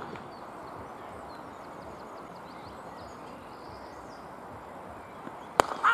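Open-air background noise with faint bird chirps, then a single sharp crack of a cricket bat striking the ball near the end, followed at once by a shout.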